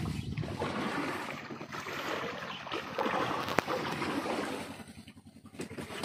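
Steady rushing of wind and sea water around a small fishing boat on open water, with one faint click about halfway through and a brief lull near the end.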